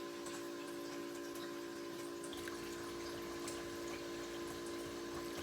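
A steady machine-like hum holding several fixed tones, with scattered faint ticks and crackles over it.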